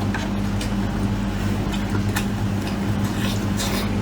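Chewing and mouth noises of someone eating braised beef ribs: a handful of short, wet clicks and smacks. Under them runs a steady low hum.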